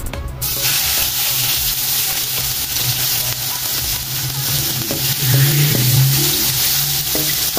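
Chicken breast pieces sizzling as they fry in hot oil in a non-stick pan, the sizzle starting suddenly about half a second in as the first piece goes in, then staying steady as more pieces are laid in with metal tongs.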